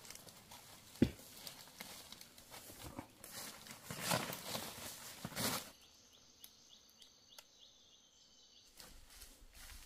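Dry, dead banana leaves rustling and crackling underfoot as a person shifts and steps through thick leaf litter, with one sharp snap about a second in and the crunching loudest just before it stops abruptly near the middle. After that only a faint forest background remains.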